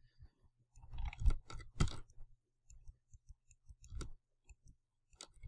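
Scattered clicks and taps of a computer mouse and keyboard, with a few louder ones about one, two and four seconds in.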